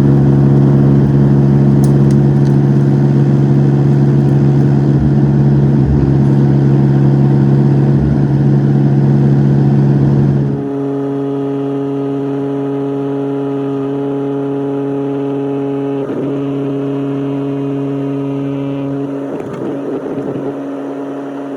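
Excavator's diesel engine running steadily under throttle, becoming noticeably quieter suddenly about halfway through.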